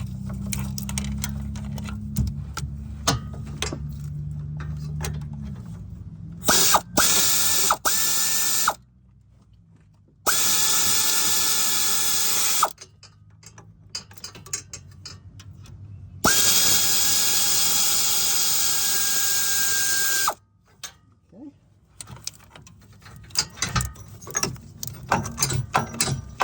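A cordless power tool backing out the AC compressor's mounting bolts. It runs with a steady whine, first in a few quick pulses and then in two longer runs of a few seconds each, and each run starts and stops sharply. Scattered metallic clicks of hand tools come before and after.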